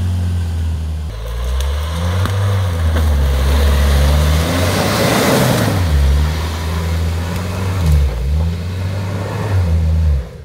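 Jeep Wrangler engine revving up and down as it crawls through deep muddy ruts, its pitch rising and falling again and again. Around the middle a rush of noise swells and fades as the vehicle passes close by, tyres churning mud.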